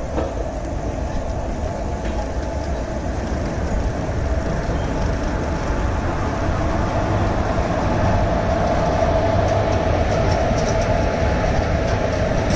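WAP4 electric locomotive drawing a train along the platform, a steady rumble with a droning tone that grows louder as it passes close by.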